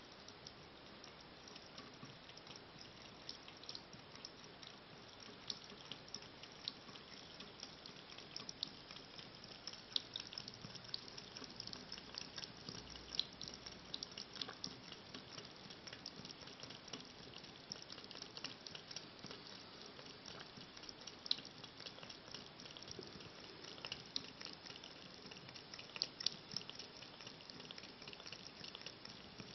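A cat lapping from a thin trickle of running tap water: a faint steady trickle with many irregular small wet ticks and drips.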